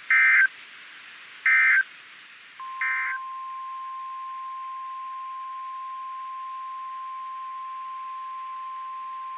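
Emergency Alert System data bursts on NOAA Weather Radio: three short, loud warbling tone bursts about a second apart, the end-of-message code that closes an alert. Near the third burst a steady single-pitch warning alert tone, about 1050 Hz, comes in and holds, announcing the next alert.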